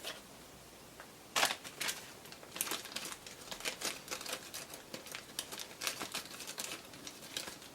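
Wicked Edge 3.5-micron leather strops drawn in quick repeated strokes along a D2 steel knife edge, the final polishing stage of the sharpening. After a short click, the rapid strokes start about a second and a half in.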